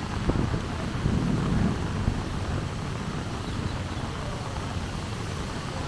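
Street traffic on a rain-wet city road: a steady low rumble of passing motor vehicles, with an even wash of rain noise above it.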